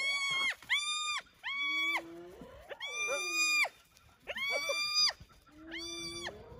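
Spotted hyenas squealing as they squabble over a carcass: about six high-pitched calls, each held level for under a second before dropping away, with lower, rising-and-falling calls in between.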